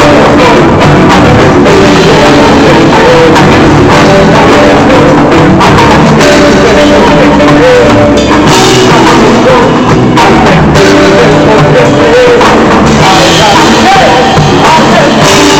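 Live band playing loud through a PA during a sound check, with drum kit and a singing voice.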